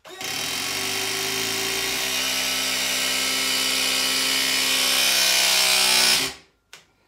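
Battery-powered press gun running its motor for about six seconds to press a press-fit fitting onto copper pipe. Its note steps lower about two seconds in, and it cuts off suddenly when the press cycle is done and the fitting is made.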